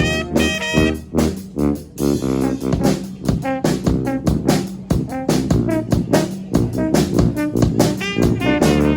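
Small four-horn brass band playing an up-tempo tune in short, quick notes with a steady beat.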